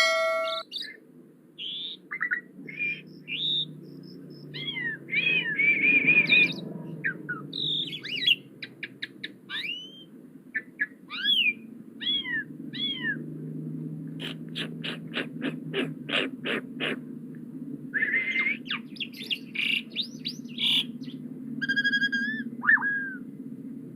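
Asian pied starling singing a long, varied song of whistles, gliding chirps and harsh notes, with a quick run of sharp clicking notes about two-thirds of the way through, over a steady low hum.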